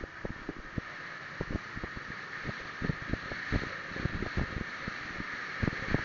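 Wind buffeting the microphone in irregular low thumps over a steady hiss of road and engine noise from a vehicle moving along a road.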